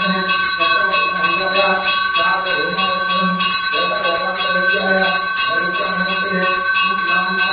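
Brass hand bell (ghanta) rung without pause during the aarti, its metallic ringing held steady, with a voice chanting underneath.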